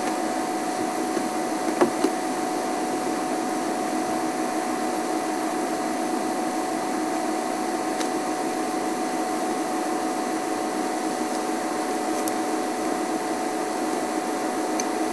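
Safari game-drive vehicle's engine idling, a steady drone with a thin constant whine. There is a single short knock about two seconds in.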